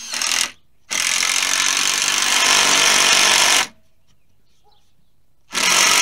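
Loud electric motor of a power tool or appliance, switched on and off in bursts: briefly at the start, then for nearly three seconds, then restarting near the end, each time starting and stopping abruptly.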